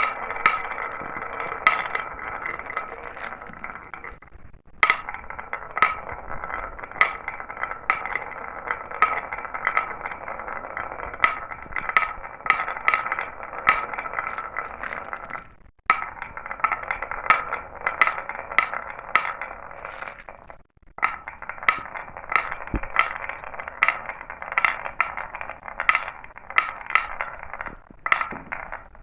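Glass marbles rolling down a marble run track: a steady rolling rattle with a ringing hum, dotted with many sharp clinks as the marbles knock against each other and the track. The rolling breaks off briefly a few times.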